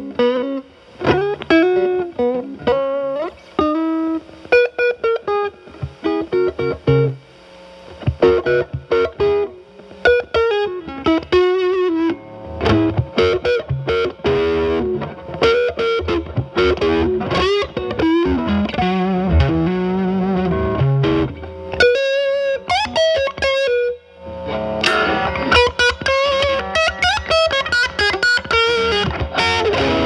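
Electric guitar (Telecaster) played through a Moollon compressor pedal used as a gain boost into a Marshall Valvestate's drive channel, with the guitar's volume rolled back to clean up the overdrive. Single-note lead lines with string bends and vibrato, and a short pause about 24 seconds in.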